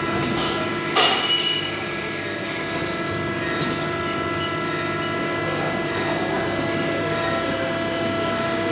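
A steady machine hum of several even tones, with a few sharp knocks and clinks. The loudest knock comes about a second in.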